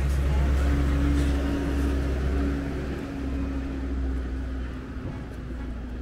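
A motor vehicle's engine running close by: a low rumble with a steady hum that slowly drops in pitch and fades over the last few seconds, as of a vehicle passing and moving away.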